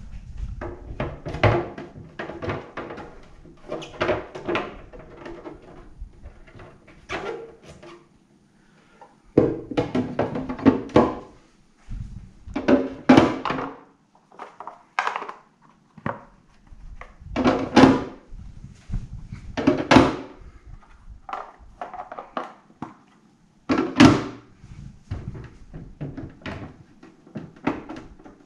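Hard plastic brewing parts being handled: a clear plastic step-filter tray and its black mash screens and inserts set in, lifted out and knocked together. It makes irregular thunks and rattling clatters with short pauses between them.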